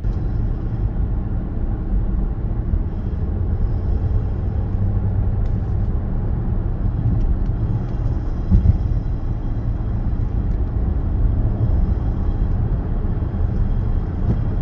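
Supercharged Range Rover driving forward: a steady low road and drivetrain rumble with a faint high whine above it, and one short knock about eight seconds in. The driver takes this grinding noise for the electric power steering rack.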